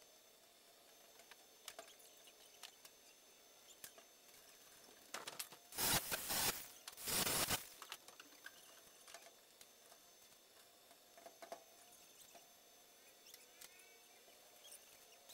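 Arc welding on a steel-frame column: two short bursts of crackling, the first about a second long and the second shorter, a little over halfway through, with scattered light ticks and taps of metal work around them.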